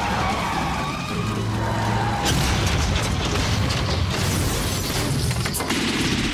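Action-film soundtrack: background music mixed with booming explosions and fire on a freeway, with a sharp hit about five and a half seconds in.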